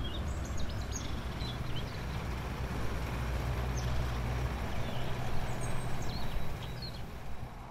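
A steady low engine drone, such as a vehicle or machinery running, over a bed of outdoor noise, with birds chirping in short high calls. The drone grows a little stronger midway and eases off near the end.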